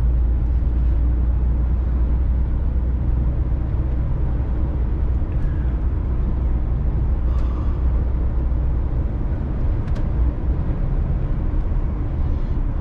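DAF XF106 lorry's diesel engine and road noise as the truck drives along, a steady low drone. A light click about ten seconds in.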